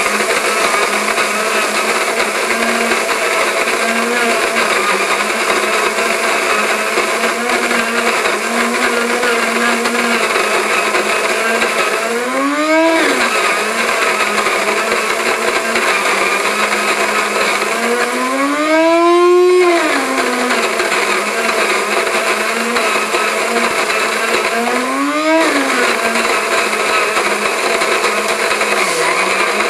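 Krups GVX-1 conical burr coffee grinder's motor running steadily as it grinds beans. Three times its pitch rises and then falls back, the second time longest: the grinder briefly runs empty when the beans stop feeding into the burrs, a common complaint about this model.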